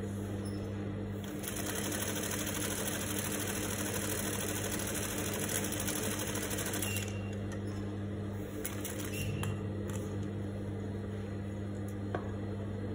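Juki industrial sewing machine stitching down a flat-felled seam for several seconds, then stopping, over a steady low hum. A few light clicks follow, and scissors snip the thread near the end.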